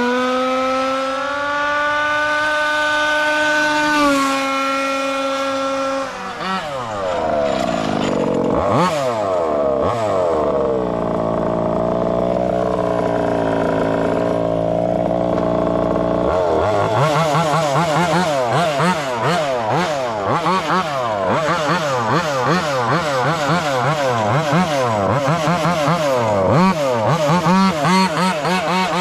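Taylor RC 35cc two-stroke gas engine of a 1/5-scale RC car, held at high revs for a few seconds. It then drops and runs unevenly, and near the end it is revved up and down again and again in quick blips.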